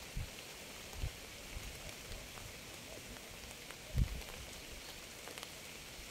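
Steady, fairly faint rain hiss with a few soft low thumps, the loudest about four seconds in.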